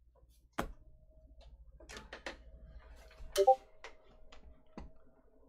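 Scattered light clicks and ticks, about half a dozen, the loudest about three and a half seconds in, over a faint steady tone that sets in about a second and a half in.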